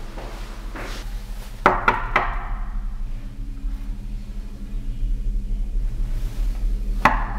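Knocking: three quick sharp knocks about a second and a half in, then two more near the end, over a steady low hum.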